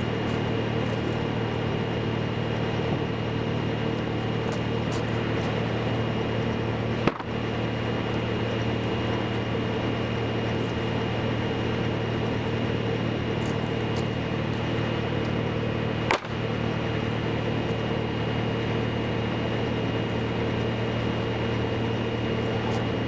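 An engine running steadily at a constant speed, with a thin high whine over its drone. It is broken twice by a short sharp click, once about a third of the way in and again past the middle.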